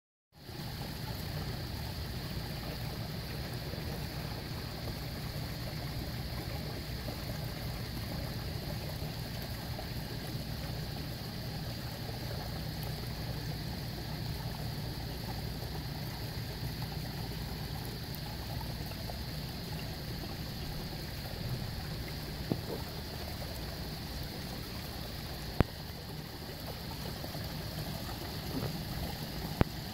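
Steady splashing of water pouring from pipe outlets into a pond, with a low steady hum underneath. A few sharp clicks in the second half.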